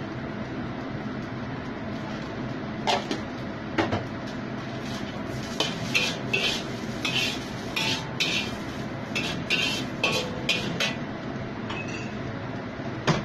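Metal spatula scraping and knocking against a black steel wok while stir-frying rice vermicelli. A few strokes come early on, then a busy run of scrapes in the middle and a single sharp knock near the end, all over a steady hiss.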